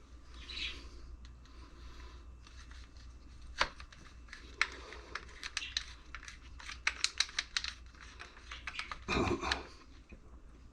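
Rapid irregular small clicks and taps of hands adjusting and handling a router while setting its bit depth, thickest in the middle, with a short louder rustling scrape near the end.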